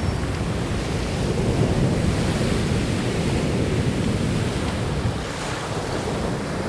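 Steady rushing of sea surf and wind buffeting the microphone.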